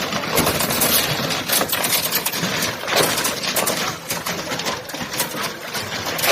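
Concrete pump running: steady engine noise with sharp knocks at uneven intervals.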